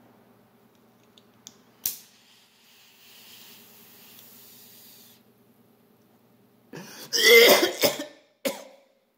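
A lighter clicks twice, then a steady soft hiss for a few seconds as a glass pipe packed with weed and shatter is lit and drawn on. About seven seconds in comes a burst of loud coughing as the smoke comes out, with a shorter cough just after.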